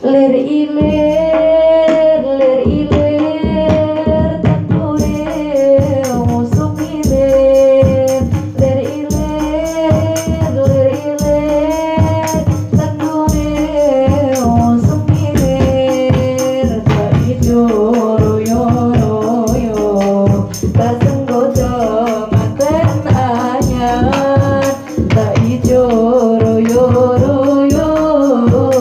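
A woman singing a Javanese sholawat melody with a rebana ensemble: kendang hand drums and a terbang frame drum keep a steady beat under her voice. Kecer cymbals jingle in rhythm from about five seconds in.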